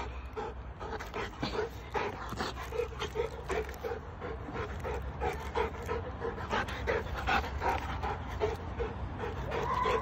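Rottweiler panting quickly with a rubber ball held in its mouth, an even rhythm of about three breaths a second.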